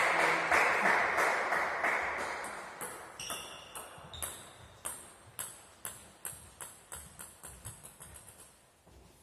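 A table tennis ball bouncing on a hard surface. The clicks come quicker and softer as the ball settles. For the first three seconds a wash of noise echoing in the hall fades away under it.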